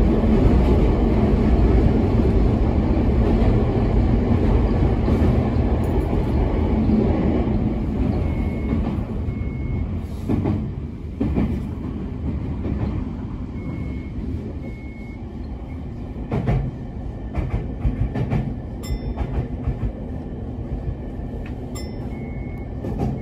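Toei 6300-series electric train heard from inside a passenger car while running: a steady rumble of wheels on rail and motor noise, loudest at first and easing off over the run. A few short high beeps in pairs and scattered clicks come through faintly.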